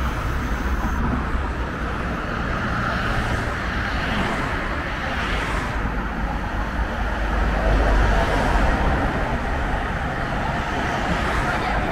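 Yellow CAF Urbos low-floor tram running along the track at the stop: a steady low rumble with rolling noise, swelling a little about eight seconds in.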